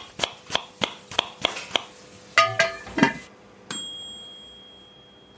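Knife chopping on a cutting board in a quick, even rhythm of about three strokes a second, then a few ringing metallic clinks and a single bright bell ding that rings out and slowly fades.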